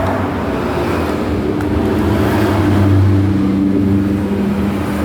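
An engine running steadily with a low hum that swells briefly about three seconds in.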